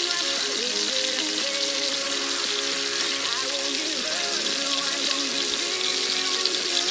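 Hot oil sizzling steadily in a wok as green beans are tipped in, with instrumental background music playing over it.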